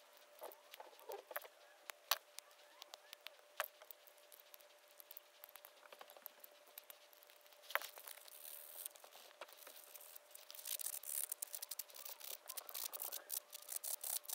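Utility knife blade scraping and shaving a tiny wooden lure body in scattered small clicks and scrapes, then from about ten seconds in quick repeated rubbing strokes as the lure is sanded by hand.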